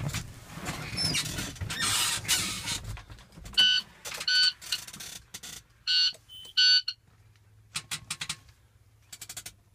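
Rustling and handling noise, then four short electronic beeps in two pairs, each pair about 0.8 s apart, then two quick runs of light clicks near the end.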